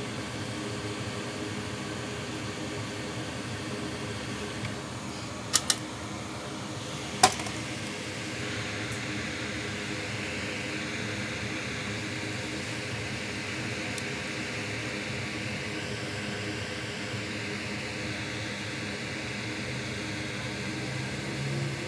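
Steady whir of a fan, with two quick clicks about five and a half seconds in and a louder, sharper click about a second and a half later.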